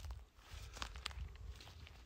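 Faint footsteps of a person walking, a few soft steps over a low rumble.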